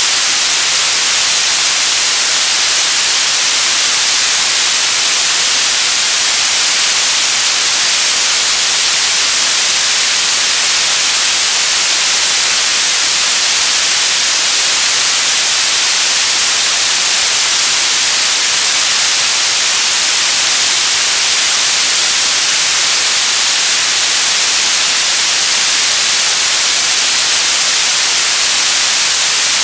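Radio static: a loud, steady hiss, strongest in the high end, with no tuning sweeps or breaks.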